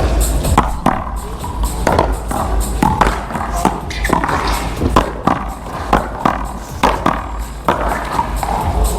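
One-wall paddleball rally: sharp knocks of the paddles striking the ball and the ball hitting the wall, about one a second, with music and voices in the background.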